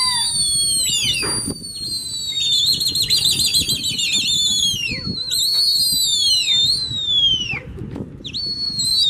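Many overlapping high whistles, each sliding down in pitch, with a run of quavering, warbling whistles about two to four seconds in. Beneath them is a steady rustling noise, and there are a couple of sharp knocks.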